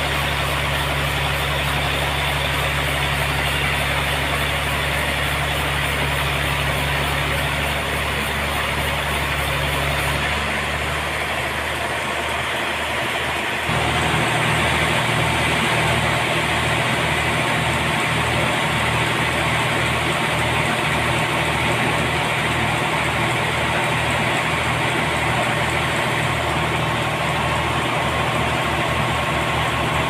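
A homemade sawmill's engine running steadily. Its note shifts about ten seconds in and again a few seconds later, then settles into an even pulsing beat.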